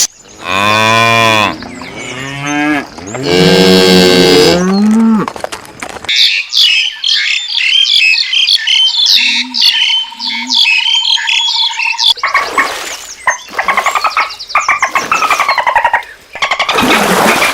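Cattle mooing: two long low calls in the first five seconds. Then about six seconds of rapid high bird chirping over a steady whistling tone, followed by a busier stretch of high-pitched animal calls.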